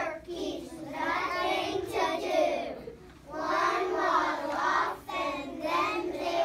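A group of young children singing a song together in unison, in phrases with short breaks between them.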